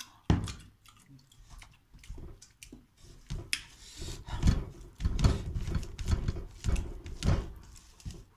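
Close-up eating sounds: chewing and fingers working food, with a string of short knocks and thumps that is busiest from about four to seven and a half seconds in.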